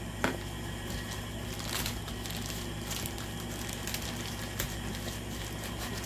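Plastic mailer bag crinkling and crackling in short scattered bursts as it is cut open with a craft knife and pulled apart, with a sharp click about a quarter second in, over a steady low hum.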